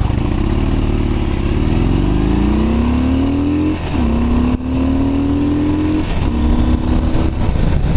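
Harley-Davidson Dyna V-twin engine accelerating under way: its pitch rises, drops sharply at an upshift a little before four seconds in, climbs again, and drops at a second shift about six seconds in.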